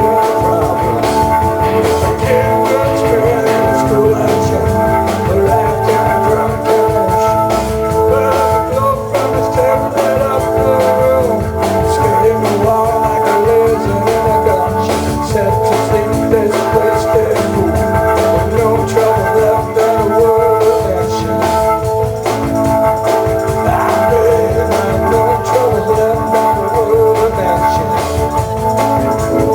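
Instrumental rock music: an organ, Hammond-style, holding sustained chords over a steady drum beat, without vocals.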